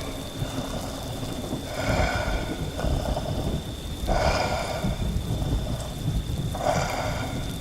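Rain falling with a continuous thunder rumble. Over it, a werewolf sound effect gives three short breathy growls, about two, four and seven seconds in.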